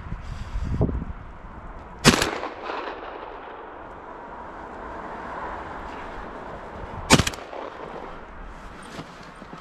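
Two gunshots from a hunting gun, about five seconds apart, each followed by a short trailing echo.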